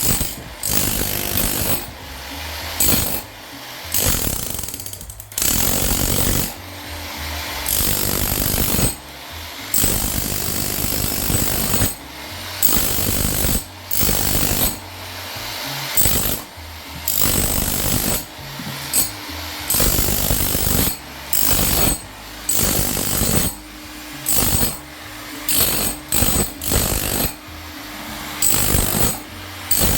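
Jackhammer in bathroom demolition, run in short stop-and-start bursts of one to three seconds with brief pauses between them.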